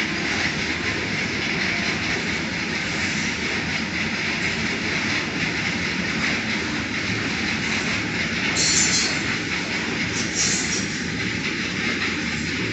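Loaded hopper wagons of a long freight train rolling past, a steady, loud noise of steel wheels on the rails. Two brief, sharper high-pitched bursts stand out about nine and ten and a half seconds in.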